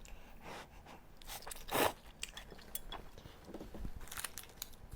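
A person eating close to the microphone: chewing with small crunches and mouth clicks, and one louder mouthful just under two seconds in.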